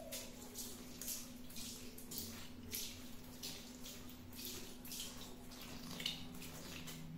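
Water splashing from burst water balloons, in short repeated splashes about two a second, the sharpest near the end, over a steady low hum.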